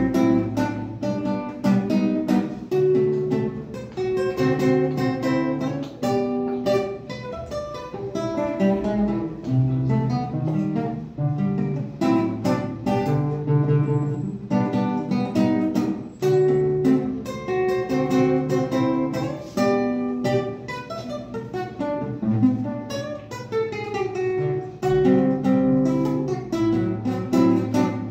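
Solo classical guitar played fingerstyle: a continuous run of plucked notes and chords.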